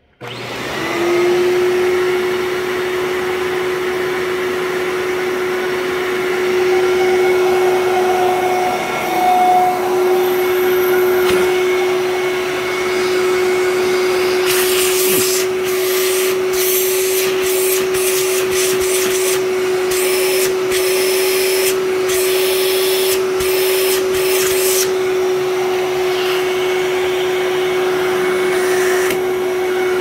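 Fantom Thunder 12-amp upright vacuum cleaner switched on, its motor spinning up within a second and then running with a steady whine over a constant rush of air. From about 15 to 25 seconds in, short bursts of louder hiss come and go.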